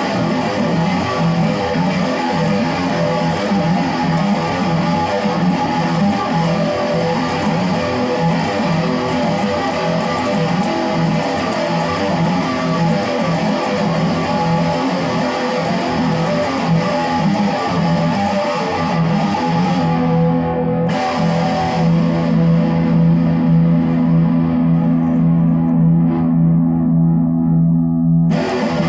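Guitar playing: a dense wash of sustained, ringing notes over a steady held low note, with a short break in the upper notes about 21 seconds in.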